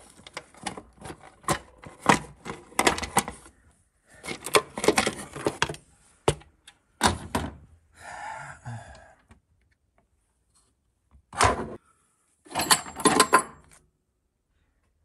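Hand tools and metal engine parts clicking and knocking in quick runs, with a bright metallic clinking near the end.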